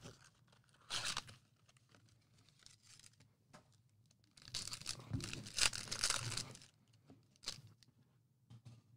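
Foil trading-card pack wrapper being torn open and crinkled as the cards are pulled out, in a few short bursts, the longest about halfway through.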